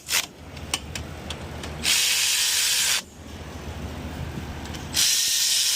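Pneumatic hand tool driving the hub bolts of a Ford F-150 front wheel bearing hub assembly down snug, running in two bursts of about a second each with loud air-exhaust hiss. Between the bursts come a few sharp metal clicks.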